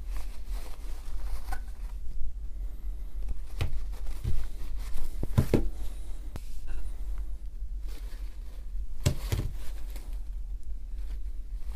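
Paper towel rustling and crinkling as thick grease is wiped off the inside of a demolition hammer's cast housing, with a few light knocks of the metal parts being handled, the loudest about halfway through. A steady low hum lies underneath.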